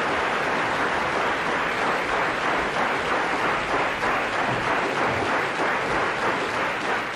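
Audience applauding: a steady, dense patter of clapping.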